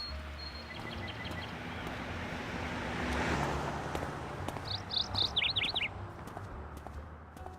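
A car passing by: a rush of road noise that swells to a peak about three seconds in and then fades. Birds chirp in two short bursts about five seconds in.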